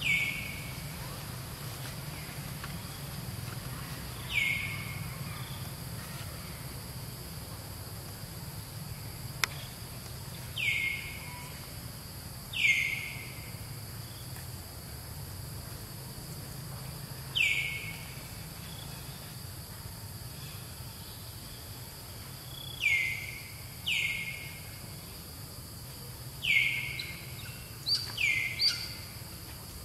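A high call that slides down in pitch, repeated about ten times at uneven gaps and bunching up near the end, over a steady high insect drone.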